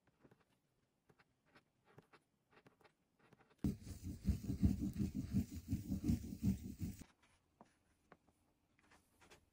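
Faint ticks of a gouge cutting into lino, then about three seconds of quick, hard scrubbing as paper is rubbed with a rounded glass tool over the inked linocut block to take the print. The scrubbing stops suddenly, and faint rustles follow as the paper is lifted off.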